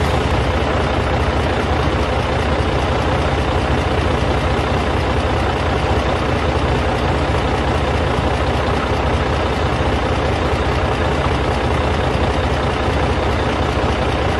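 Radio-controlled model construction machinery running, a steady mechanical noise with a constant hum and no breaks or changes.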